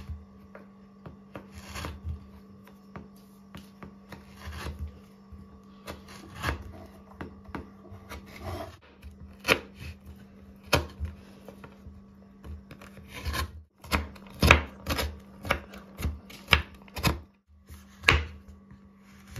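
Kitchen knife chopping milk chocolate bars finely on a wooden cutting board: irregular knocks of the blade on the board with scraping and crunching. The cuts are sparse at first and come quicker and louder in the second half.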